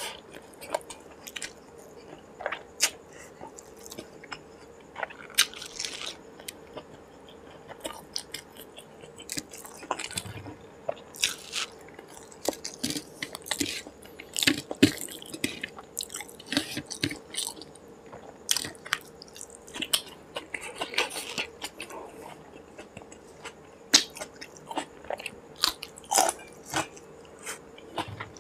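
Close-miked chewing of a mouthful of rice and curry eaten by hand: irregular wet smacks, clicks and crunches. Near the end there is a bite of raw green chilli.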